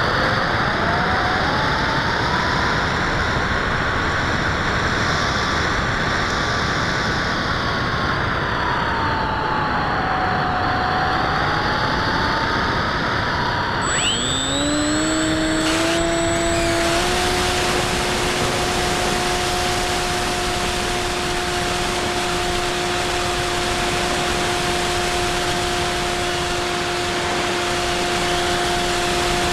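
Stock electric motor and propeller of a Bixler 2 RC glider, heard through an onboard camera as a steady whine over rushing air. In the first half the whine's pitch slowly rises and dips with throttle. About halfway through it drops, climbs back and settles into a steady lower tone.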